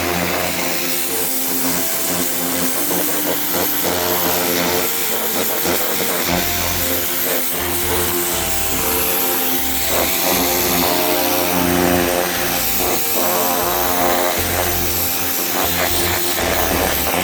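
Ryobi 1600 PSI electric pressure washer running steadily, its motor humming under the hiss of the water jet on the deck stairs, with background music over it.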